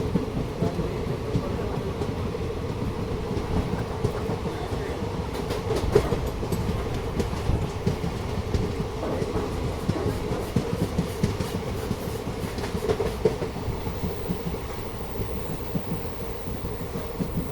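Indian Railways train running along the track: a steady rumble with a continuous hum and many quick clicks and knocks from the wheels on the rails.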